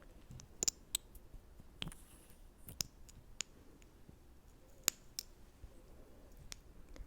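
Close-miked ASMR mouth sounds: sharp, wet clicks of the lips and tongue, about a dozen at irregular spacing.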